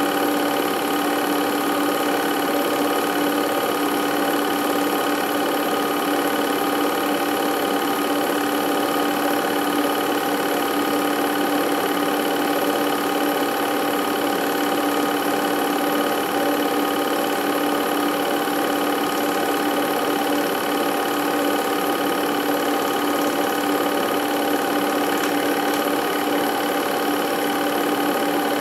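Film projector running: a steady mechanical whir with a constant hum that does not change.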